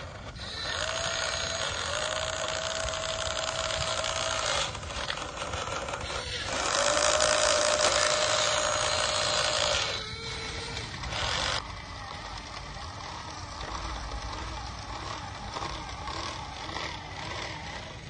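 Electric motors and plastic gearboxes of a Huina RC excavator whirring as it drags a chain of RC dump trucks over gravel. The whine comes in three throttle bursts that start and stop sharply, then settles to a lower, wavering running sound for the last several seconds.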